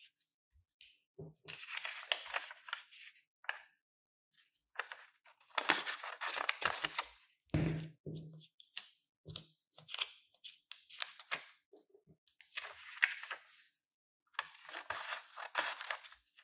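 Sheets of paper rustling as they are handled and cut with scissors, in bursts of about a second, separated by short silences, with a few brief low knocks in between.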